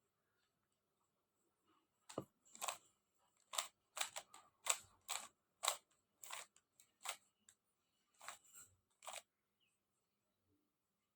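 Plastic 3x3 Rubik's cube being turned by hand, its layers clacking about a dozen times in an uneven series. The quick sharp clicks start about two seconds in and stop a couple of seconds before the end.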